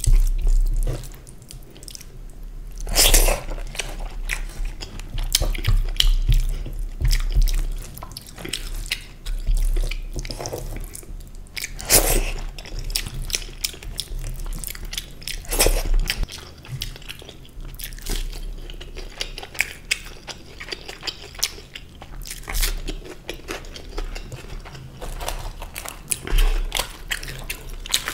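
Close-miked wet chewing and lip smacking of kadhi chawal (rice in sour yogurt kadhi) eaten by hand in big mouthfuls, with a few louder sharp smacks spread through.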